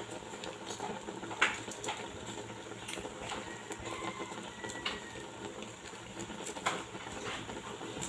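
A spoon stirring meat in a cooking pot, giving scattered light knocks and scrapes against the pot every second or so.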